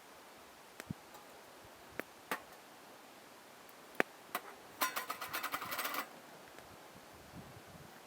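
Several sharp clicks and taps, then a rapid rattling run of clicks that lasts about a second, starting roughly five seconds in.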